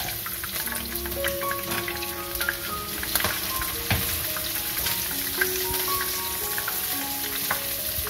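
Chopped garlic and shallots sizzling in hot oil in a pan, a steady hiss with scattered pops. Background music with a simple stepping melody plays over it.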